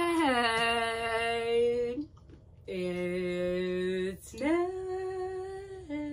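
A woman's voice singing a few long held notes with short breaths between them, the first sliding down in pitch before it settles.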